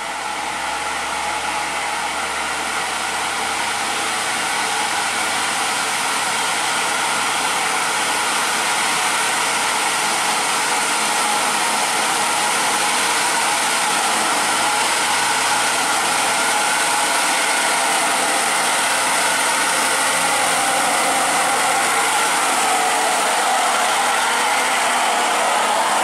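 Diesel engine of a heavy Mitsubishi cargo truck running steadily with gear and drivetrain whine as the truck approaches, growing gradually louder as it comes alongside.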